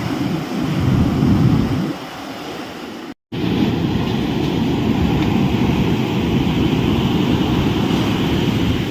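Sea surf breaking and washing on the shore, mixed with wind buffeting the microphone. The sound cuts out for an instant about three seconds in, then carries on steadily.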